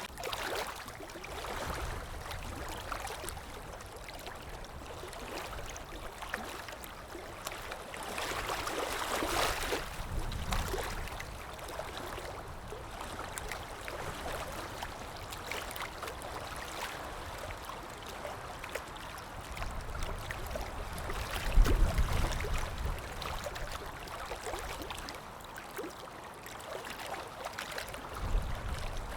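Flowing, splashing water with uneven swells, and a few low rumbles, the loudest about twenty-two seconds in.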